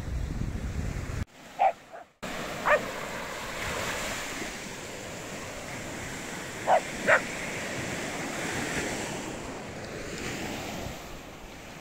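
Small dog barking, four short yaps, two of them close together about seven seconds in. Waves breaking on a sandy beach and wind on the microphone run underneath.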